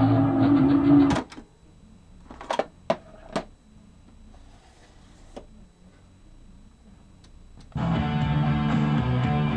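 Guitar music playing from a Panasonic RE-8080 8-track stereo, cutting off abruptly about a second in as the 8-track cartridge is pulled out. Three short plastic clicks follow from the cartridge and slot flap, then a quiet gap, and music starts again from the set suddenly near the end.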